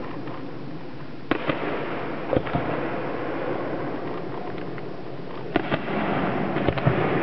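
Aerial fireworks bursting: sharp bangs in quick pairs about a second in and again at two and a half seconds, then more pairs and a short cluster near the end, over a steady background noise.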